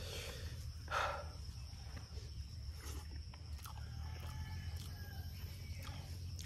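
A hand mixing and scooping rice and curry on a banana leaf: a few soft squishing, rustling touches over a steady low hum and a thin, steady high whine.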